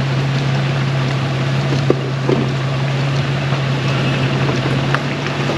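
Off-road vehicle driving slowly along a dirt trail: a steady low engine drone over tyre and road noise, with a few small knocks about two and five seconds in.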